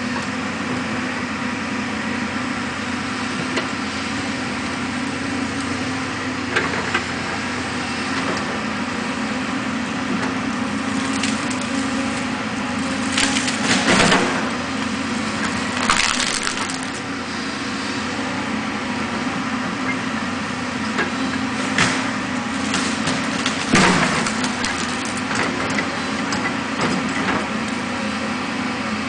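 Volvo tracked excavator's diesel engine running steadily in the distance, with several sharp cracks and snaps of wood and roots breaking as the machine works the tree.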